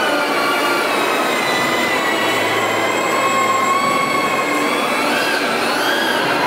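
Small electric ducted-fan motors of a radio-controlled foam Boeing 777 model running with a steady high whine. Around five to six seconds in the whine swells and its pitch rises and falls again as the throttle changes.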